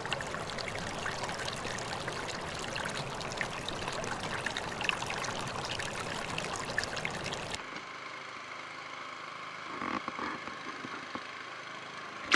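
Flowing river water, a steady splashing, trickling rush. About two-thirds of the way through it cuts abruptly to a quieter, duller water sound.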